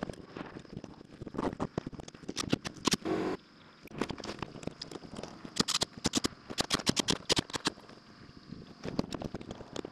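Boots and plywood sheets knocking and scraping on a plywood roof deck: irregular sharp taps and clatters, some in quick runs, with a short buzz about three seconds in.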